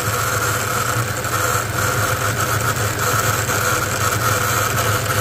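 1997 Ford Mustang engine idling steadily, a smooth, even hum with no change in speed.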